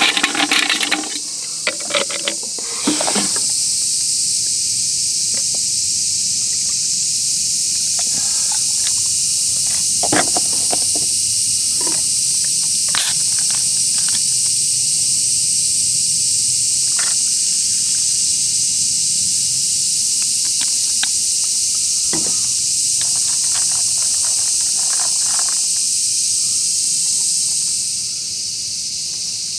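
A carbonated grapefruit sour fizzing steadily over ice in a glass, with a few sharp ice cracks. Ice knocks against the glass in the first three seconds, and the fizzing drops away near the end.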